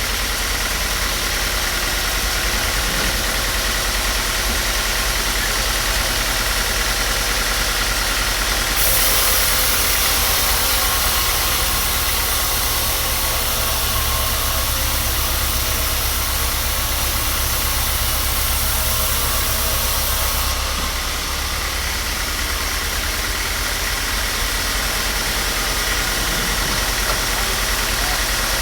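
Woodworking power tool running steadily with a low hum and a hiss; from about nine seconds in until about twenty-one seconds the sound turns brighter and hissier, then settles back.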